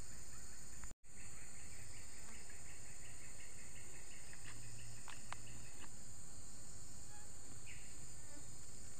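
Steady high-pitched drone of insects, with a run of rapid, evenly repeated chirps for a few seconds after the start and a few faint ticks later. The sound cuts out for an instant about a second in.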